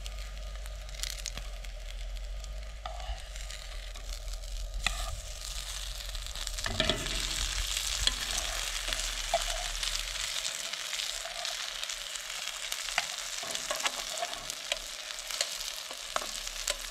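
Burger patties sizzling in a frying pan on a camp stove, the sizzle growing louder about six seconds in as the patties are flipped, with metal tongs clicking and scraping against the pan. A low steady hum underneath cuts out about ten seconds in.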